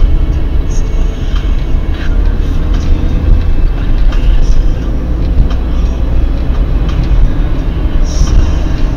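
Cabin noise of a car driving on a city road, heard from inside: a steady, loud low rumble of road and engine noise with a few faint ticks and rattles.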